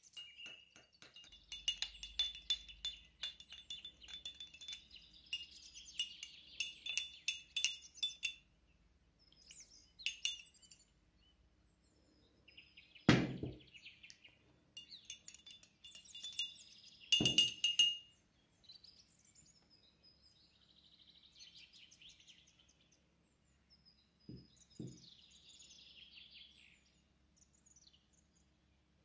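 Glass clinking and chinking in quick runs of ringing clicks, with two heavier knocks near the middle and birds chirping faintly in between.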